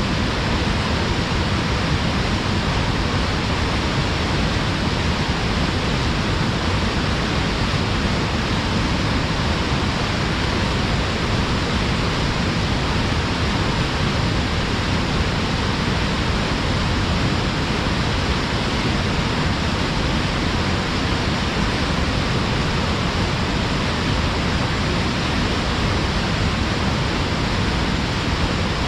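Small waterfall pouring forcefully between rocks: a steady, even rush of falling water.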